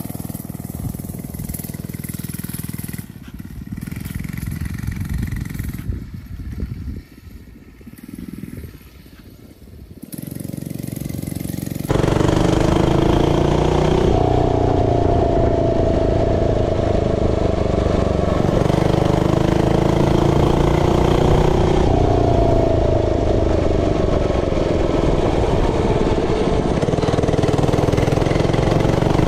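FRP mini bike's 99cc four-stroke OHV single-cylinder engine, first heard faint and distant as the bike rides past, dropping away for a few seconds. About twelve seconds in it comes in loud and close from the rider's seat, running under load with its pitch rising and falling as the throttle is worked.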